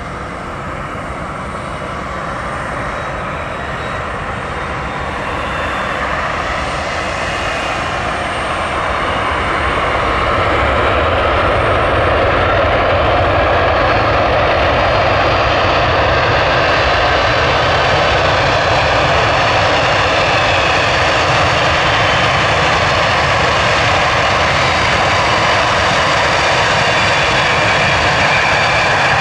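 Boeing 767-300ER's twin jet engines running loud, the noise building over about the first ten seconds as the airliner comes close and then holding steady.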